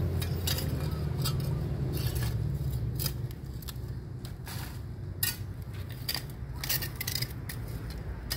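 Litter-picking tongs clicking and scraping along a concrete drainage ditch as debris is picked out: a string of short, sharp clicks. A low hum sits underneath and fades after about three seconds.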